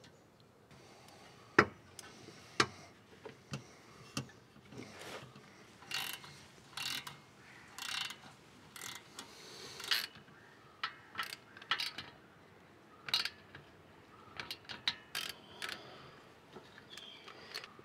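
Irregular mechanical clicks and short clatters, the sound of small parts being handled and fitted by hand. Two sharp clicks near the start are the loudest.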